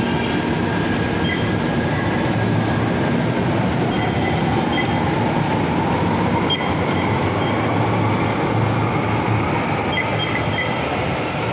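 Steady, loud rumbling noise of a rail transit station with a train running, and faint short beeps now and then.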